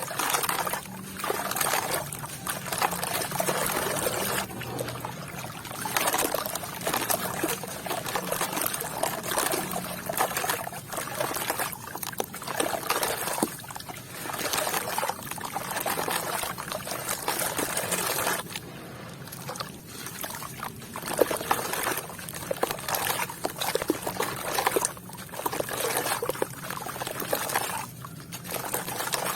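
Wet sand and red dirt with small white stones, trickling and pouring with water in irregular surges, dotted with small sharp clicks.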